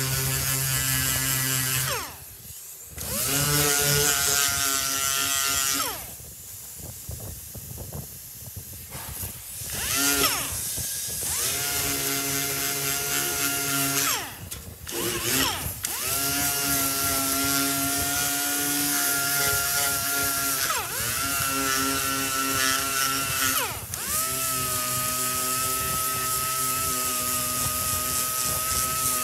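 Random-orbital sander grinding a sanding disc over body filler on a car's steel quarter panel: a steady whine with hiss from the disc, stopped and restarted several times, the pitch falling each time it is released and spins down.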